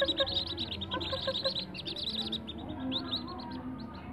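A brood of whistling duck ducklings peeping together: many rapid, high, downward-sliding peeps overlapping without a break.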